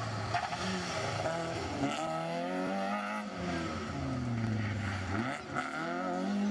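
Peugeot 106 rally car's engine revving hard through a tight bend, its pitch falling on the brakes and rising again as it accelerates away, several times over.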